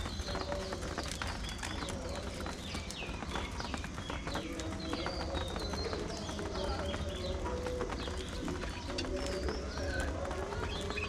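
A flock of budgerigars chattering and chirping at once, with a constant patter of small clicks.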